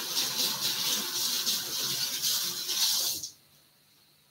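Kitchen tap running with hands being washed under it, a steady rush of water that shuts off suddenly about three seconds in.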